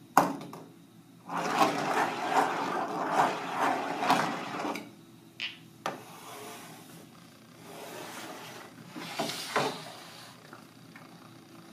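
Steel balls rolling along a wavy metal-railed wooden track with two humps: a sharp click as they are let go, a few seconds of steady rolling rattle, then a couple of sharp clacks as they reach the end. Softer knocks and rubbing follow as the wooden track is handled.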